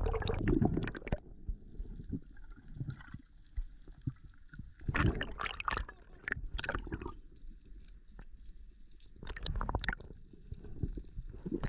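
Muffled underwater sound picked up by a camera in its waterproof housing: a low water rumble with scattered faint crackles, and a few louder bursts of water noise about five, six and a half and nine and a half seconds in.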